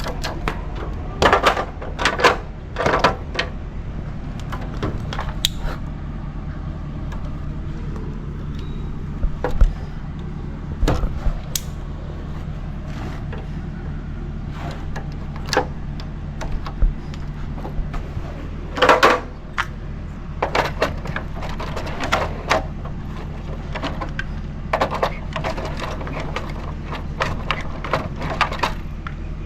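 Scattered clicks and knocks of tools and hardware being handled, some in quick clusters, over a steady low hum.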